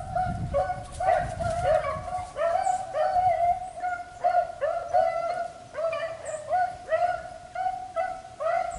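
A pack of beagles baying on a rabbit's scent: many overlapping bawling calls that each drop in pitch, coming about once or twice a second.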